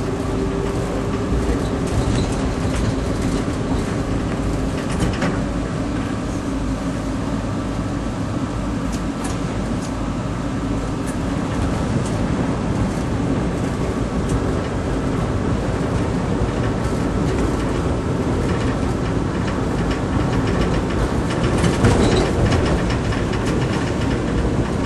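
Streetcar running along its rails, heard from inside the car: a steady rumble of wheels and motor, with scattered clicks and knocks from the track that grow louder near the end.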